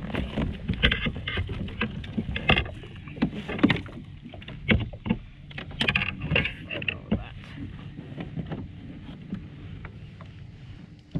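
Irregular knocks, taps and rattles on a kayak as a freshly landed bream and tackle are handled, busiest for the first several seconds and then sparser and quieter.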